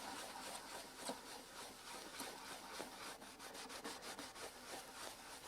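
Polishing compound being rubbed by hand back and forth on a plastic headlight lens, abrading the oxidised surface: a faint, rhythmic scrubbing that quickens to several strokes a second about three seconds in.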